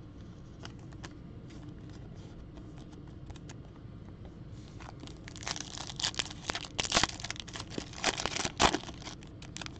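Foil wrapper of a Topps Chrome baseball card pack crinkling and tearing as it is ripped open by hand, starting about halfway through. Before that there are a few light clicks of cards being handled.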